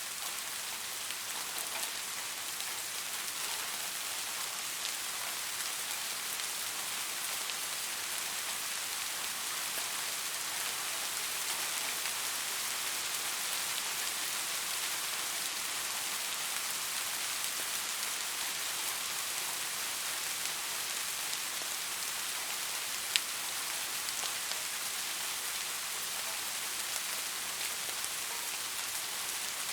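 Steady rain falling: a dense, even patter of raindrops, with one sharper single tick about three-quarters of the way through.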